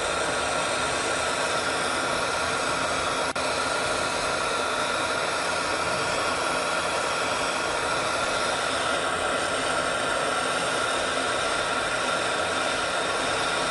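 Oxygen and fuel-gas lampworking torch burning with a steady hiss of flame, cut for an instant about three seconds in.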